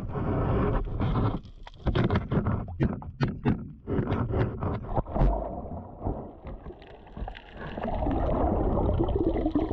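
Underwater sound picked up through a camera housing: a run of irregular sharp clicks and scrapes between about two and five seconds in, then a steady rushing hiss with a faint low hum near the end.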